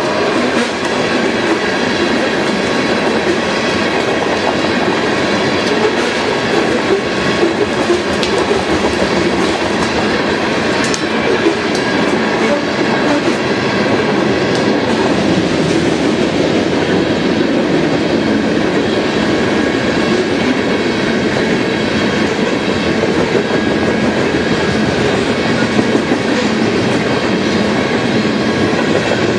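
A freight train's loaded coal gondola cars rolling past on steel wheels: a steady rumble with clickety-clack as the wheels pass over rail joints, and faint, thin, steady squealing tones from the wheels.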